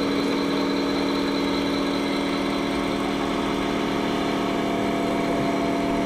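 Radio-controlled model machine running with a steady, even hum. This is the motor, hydraulic pump or engine sound module of an RC truck or excavator.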